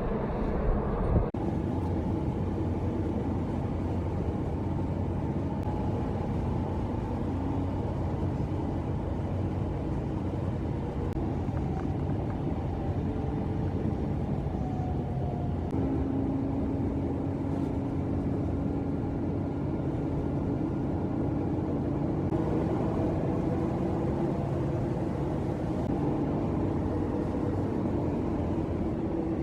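Car engine and road noise at a steady cruise, a constant drone with tones that drift slowly in pitch. There is an abrupt change about a second in.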